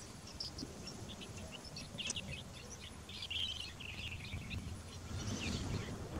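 Birds chirping, short scattered calls over a low, steady outdoor rumble.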